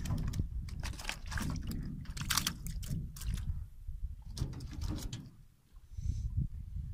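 Water splashing and knocking against a small boat as it moves along, a string of short sharp splashes through the first five seconds, over a low wind rumble on the microphone.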